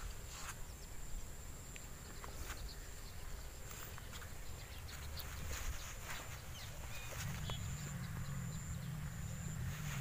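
Outdoor field ambience: wind rumble on the microphone with scattered light clicks and rustles of footsteps and hands in grass and leafy weeds. A faint steady high whine runs underneath, and the low rumble grows stronger about seven seconds in.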